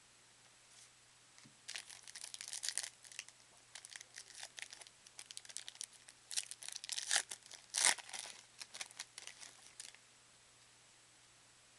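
Foil wrapper of a trading-card pack being torn open and crinkled by hand, in irregular bursts of ripping and crackling. It starts about two seconds in, has its loudest rips about seven to eight seconds in, and stops near ten seconds.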